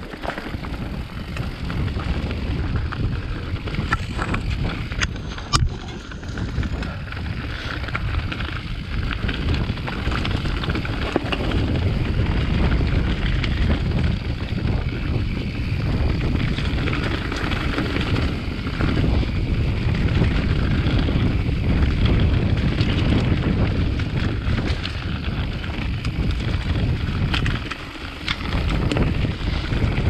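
Heavy wind buffeting on a chest-mounted GoPro's microphones as a mountain bike descends a trail at speed, with tyre and trail noise and scattered knocks, a sharp one about five seconds in. The buffeting eases briefly near the end.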